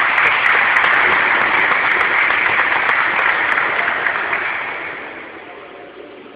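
Audience applauding, loud at first and dying away over the last couple of seconds.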